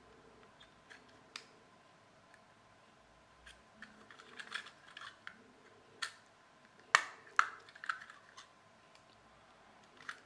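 A small knife blade prying and scraping at the rim of a push-fit plastic toy base, making scattered light clicks and scrapes. Two sharper plastic clicks, the loudest sounds, come about seven seconds in.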